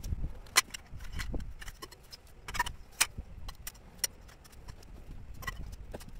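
Handling noise from a metal tent pole and a heavy canvas tarp: irregular sharp clicks and knocks, about half a dozen, over a low rustle of canvas being moved.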